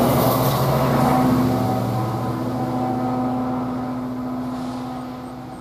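Rear distributed-power BNSF diesel locomotive of an empty coal train passing with its engine running a steady drone, then fading away as it moves off down the track.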